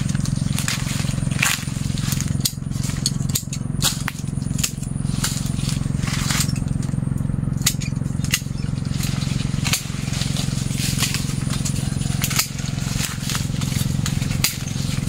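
A jackfruit tree being pruned by hand: leaves and branches rustling, with scattered sharp snaps and clicks from pruning shears and cracking twigs, over a steady low hum.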